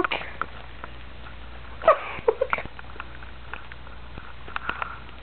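A brief voice sound about two seconds in, amid faint clicks and rustling.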